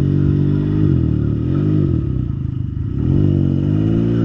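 Can-Am Ryker 900's three-cylinder Rotax engine running through an aftermarket RLS Predator Series exhaust, its pitch dipping and rising again twice as the revs change.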